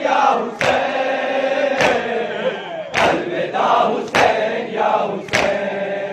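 A group of men chanting a noha, a Shia lament, in unison, with a sharp beat about every 1.2 seconds keeping time.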